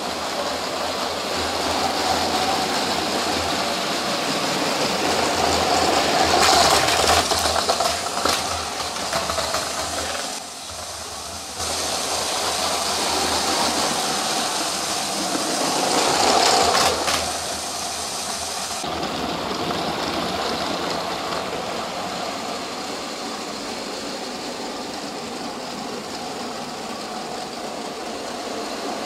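LEGO trains running on plastic LEGO track: the whirring of their small electric motors and the rattle of plastic wheels over the track joints. It gets louder twice.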